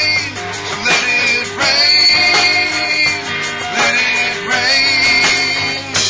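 Live rock band playing an instrumental passage: a lead guitar line with notes bent upward over the band.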